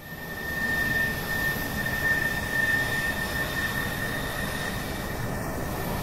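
Jet engine running: a steady whine over a rushing roar, fading in over the first second and then holding steady.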